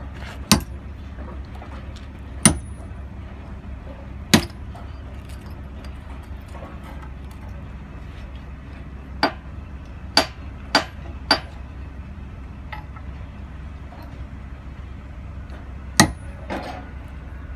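A hand-held club hammer striking steel, giving eight sharp metallic blows at uneven intervals: three spaced about two seconds apart early on, a quick run of four in the middle, and one more near the end. Under the blows runs a steady low hum.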